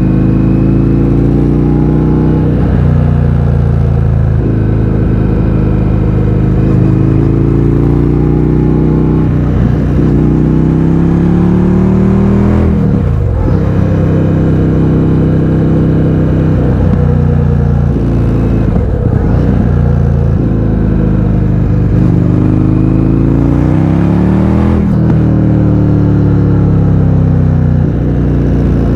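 Indian FTR 1200's V-twin engine through an Akrapovič exhaust with the baffles removed, loud, accelerating again and again: the pitch climbs, then drops sharply at each gear change or throttle-off, several times over.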